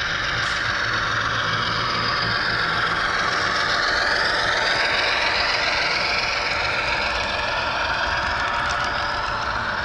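HO scale model train running on layout track: a steady rattle of wheels on the rails, mixed with diesel engine sound from a DCC sound decoder.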